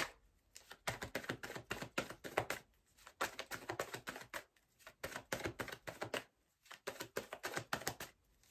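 Tarot cards being shuffled by hand: fast runs of light card clicks in several bursts with short pauses between them.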